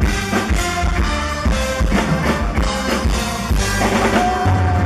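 Live band playing an instrumental passage without vocals, a drum kit keeping a steady beat under held instrument notes.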